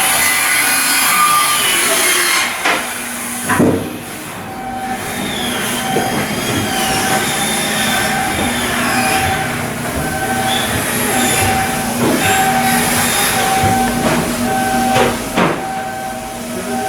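Steady machinery noise with a pulsing tone, metallic squeals and a few sharp knocks.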